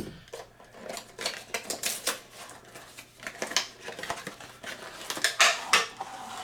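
Small plastic HeroClix miniatures and their plastic packaging being handled as a booster pack is opened: irregular clicking, clacking and crinkling.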